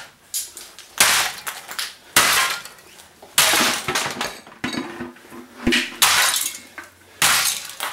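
Repeated heavy blows smashing an Aiwa CD/cassette stereo apart for scrap, about one a second, each a sharp crash of breaking casing that trails off.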